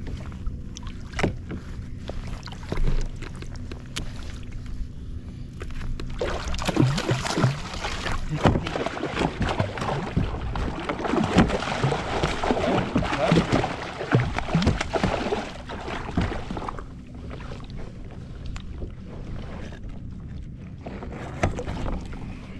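Water slapping around a kayak, then from about six seconds in roughly ten seconds of loud, irregular splashing as a hooked smoothhound is brought thrashing to the side of the kayak, easing off again near the end.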